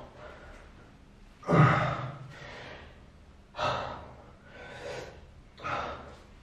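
A man gasping for breath, out of breath from a set of burpees. There are four heavy breaths, one every second or two; the first, about one and a half seconds in, is the loudest.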